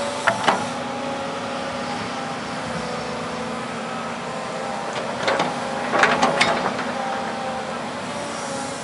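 Volvo 210 tracked excavator running steadily as its boom and bucket move. There are two sharp knocks just after the start and a burst of clanks a little past halfway.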